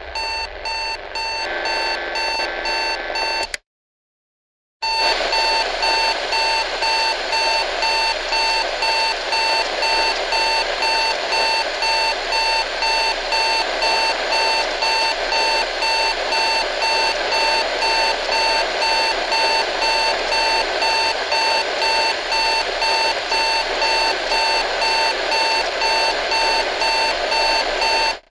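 Digital alarm clock beeping: one electronic alarm pattern for about three and a half seconds, then after a short gap another alarm beeping in a quick, steady run of pulses until it cuts off.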